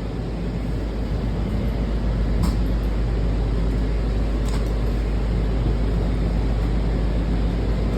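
Washington Metro railcar running, heard from inside the car as a steady low rumble that builds a little over the first couple of seconds, with a couple of faint clicks.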